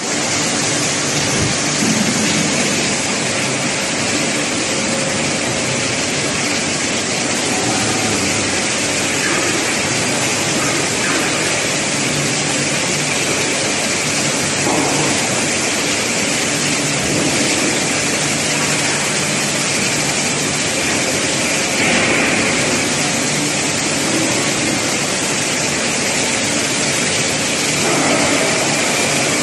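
Spiral welded pipe mill running in production: a loud, steady machinery din, an even hiss with a low hum and faint steady tones, and no distinct strokes or pauses.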